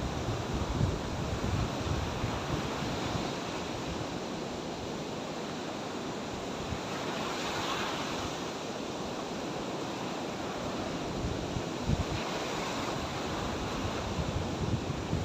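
Sea surf washing onto the shore, steady, with a louder wash about halfway through. Wind buffets the microphone with low rumbles near the start and near the end.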